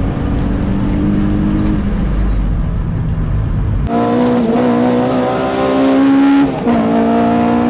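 In-cabin sound of an Infiniti G35 coupe's V6 engine running hard under load. About four seconds in, it cuts to the inside of a Toyota AE86, whose four-cylinder engine revs high with a brighter note and dips briefly twice as the throttle or gear changes.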